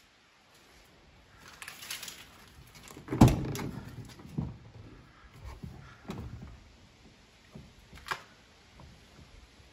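Truck cab door being opened: a rattle of handling about two seconds in, then a heavy thump as the door comes open, followed by a few lighter knocks and a sharp click near the end.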